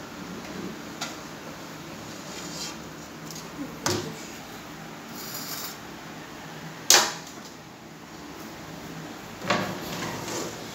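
China crockery being handled: a few sharp knocks and clinks as plates and cups are lifted out and set down on glass and wooden shelves, spaced a couple of seconds apart, the loudest about seven seconds in.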